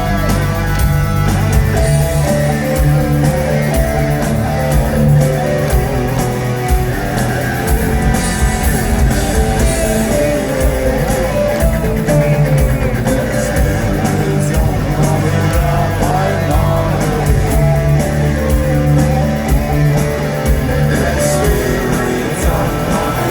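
Live rock band playing an instrumental passage, with guitars over a heavy bass line and drums.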